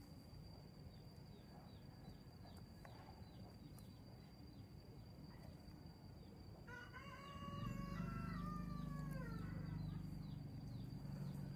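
A rooster crowing once: a single call of about three seconds, starting about seven seconds in and falling in pitch at the end. A low steady rumble comes in at about the same time and carries on, over a faint high steady whine with fast ticking.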